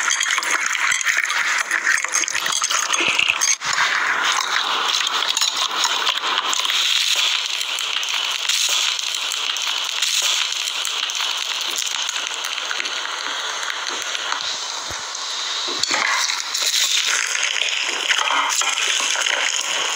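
Hands squeezing and kneading slime packed with small foam beads (floam) and pressing into loose foam beads, giving a dense, continuous crackling and popping of many tiny clicks.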